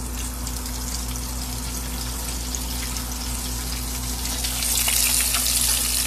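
Hot oil in a deep-frying pot sizzling steadily, the hiss growing louder about five seconds in, with a low steady hum underneath.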